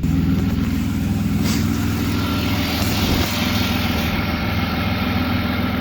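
BMW E36 engine running at a steady idle through a catless midpipe and aftermarket catback exhaust. It is holding idle now that a torn ICV-to-intake hose, the cause of it dying seconds after starting, has been patched.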